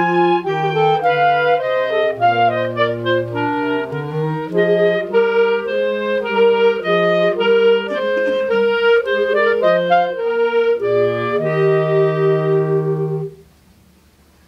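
A clarinet choir of B-flat clarinets and a bass clarinet playing a piece in several parts, with the low part moving beneath the upper voices. It ends on a held chord that cuts off about thirteen seconds in.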